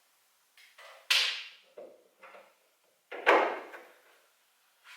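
Two sharp scraping clatters about two seconds apart, each fading quickly, with a few softer knocks between them: hard objects being handled and moved.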